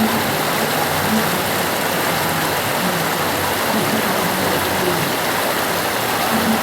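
The Ganges river flowing, a steady, even rush of moving water.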